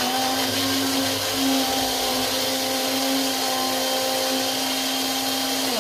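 Moulinex electric blender motor running steadily at full speed, grinding a wet green masala paste of coriander, chillies, ginger and onion with water. Its pitch drops off right at the end as it is switched off.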